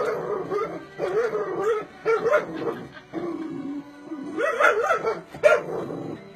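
Dog yipping and whining excitedly in short, wavering bursts over music from a television.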